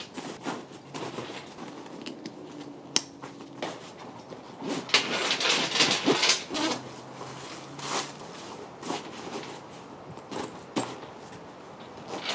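Nylon packing cubes and a fabric backpack rustling and scuffing as they are handled and pushed together, with several sharp clicks and knocks. The rustling is loudest about five to seven seconds in.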